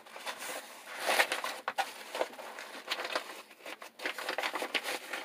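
Irregular rustling and crinkling of an inflatable life vest's deflated nylon bladder and fabric cover, handled and tucked by hand while the vest is repacked.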